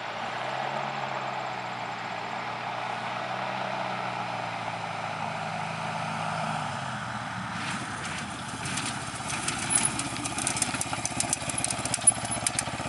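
Kolb Firestar 2 ultralight's Yamaha Phazer engine, an 80 hp four-stroke twin, throttled back and running steadily on a short-field landing approach. About seven seconds in, the engine note fades as the plane touches down, followed by a rapid run of rattles and knocks as the landing gear rolls over bumpy grass.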